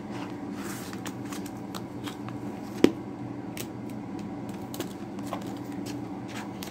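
Thin plastic sleeve pages rustling as they are turned and steel stamping plates are handled, with small clicks throughout and one sharp tap nearly three seconds in, over a steady low hum.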